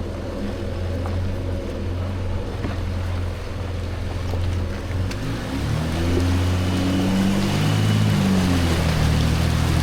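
Jeep Gladiator's 3.0-litre V6 turbodiesel running steadily at low speed, then revving up and easing back down a little past halfway through.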